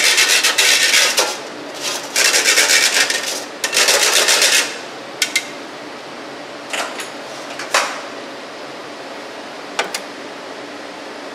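Gravel aggregate from a No. 4 sieve rattling into a stainless steel bowl as the sieve is tipped and tapped out, in three bursts. Then a few separate metal clinks as the bowl is handled and set down on a scale.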